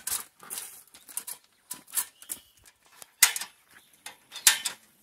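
16-step articulated aluminium ladder being handled: a string of sharp metallic clicks and clanks from its hinge locks and rails, the loudest about three seconds and four and a half seconds in.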